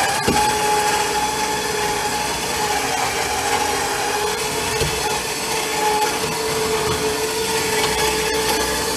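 Warn 3,000 lb ATV winch's electric motor and gear train whining steadily as it reels in cable under load, dragging a riding mower up into a pickup bed. Its pitch sags a little in the middle and comes back up.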